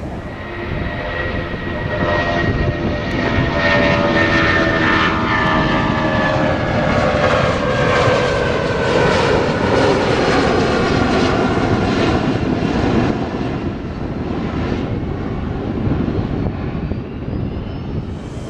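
Jet airliner's turbofan engines at takeoff power as the aircraft climbs out overhead, a loud rush with whining tones that fall in pitch as it passes. It builds to its loudest through the middle and eases off toward the end.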